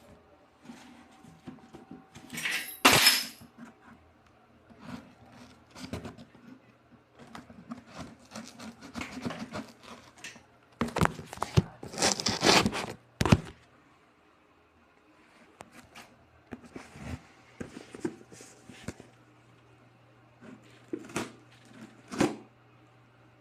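Hands handling and opening a package: scattered knocks and rustling, with two louder noisy stretches, one about three seconds in and a longer one from about eleven to thirteen seconds.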